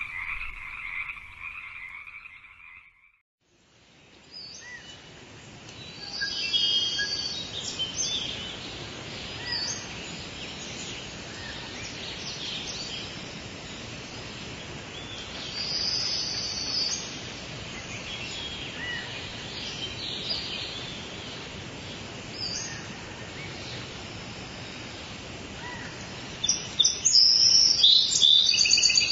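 A rapid, pulsing croaking call for the first three seconds that breaks off abruptly, then short high-pitched chirps scattered over a steady hiss, growing louder and busier near the end.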